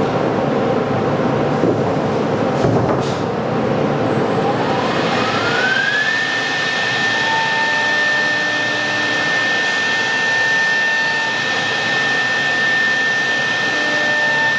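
Woodworking machine's electric drilling spindle whining up to speed: its pitch rises over about two seconds starting some four seconds in, then holds steady. Underneath runs the loud, steady rush of the machine and its dust extraction.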